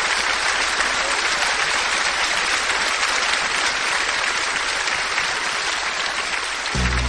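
Audience applauding steadily. A deep low thump sounds near the end.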